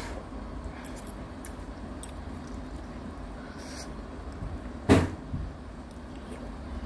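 Instant noodles slurped quietly from a paper cup, with a sharp knock about five seconds in and a smaller one just after.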